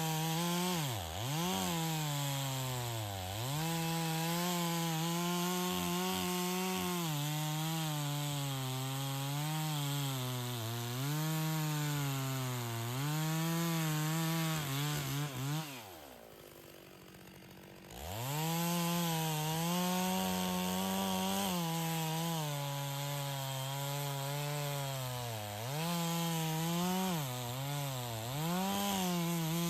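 Stihl two-stroke chainsaw running at high revs while bucking logs, its engine note sagging and recovering every second or two as the chain bites into the wood. About halfway through it drops off and goes quiet for about two seconds, then revs back up and carries on cutting.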